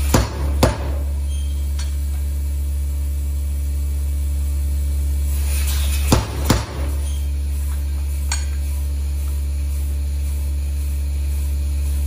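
Steam hammer, run on compressed air, striking hot steel: two heavy ringing blows about half a second apart, then after a pause of some five seconds two more, over a steady low hum of the running machinery.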